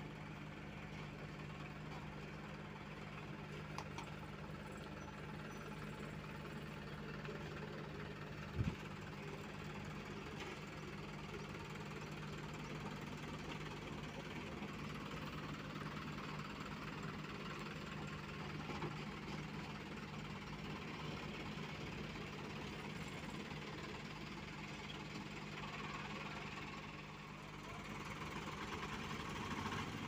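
Diesel engines of an asphalt paver and the dump truck feeding it, running steadily with a low, even hum. A single sharp thump about nine seconds in.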